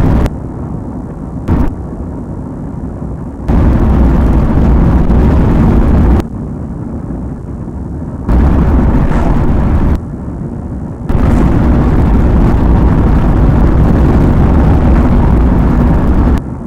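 Loud rumbling noise on a police car's dash-cam audio, with no voices. It jumps abruptly to a louder level and back in blocks lasting a few seconds, three times, with a quieter steady hiss between.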